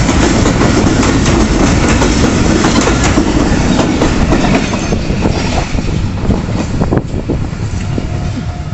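Passenger train coaches passing close by, their wheels clattering over the rail joints in a dense clickety-clack. The clatter thins out and drops in level about five to seven seconds in as the last coach goes by and the train pulls away.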